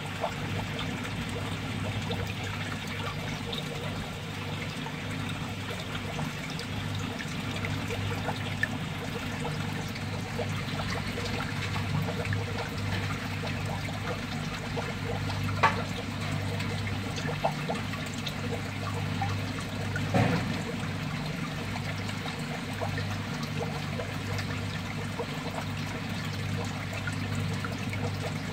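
Water trickling steadily in a crab fattening tub, over a steady low hum. A few sharp knocks stand out, the loudest about halfway through.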